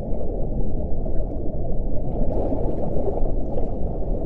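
A steady, muffled low rumbling noise with nothing bright or high in it.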